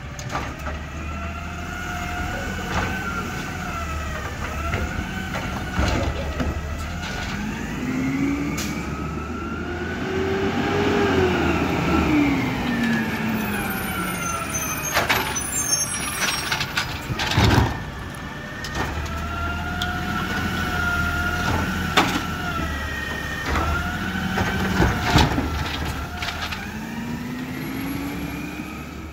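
A Peterbilt 320 CNG side-loader garbage truck running, with rising and falling whines as the Dadee Scorpion automated arm works its hydraulics to lift, dump and lower carts. Several sharp metal bangs as carts are dumped into the hopper.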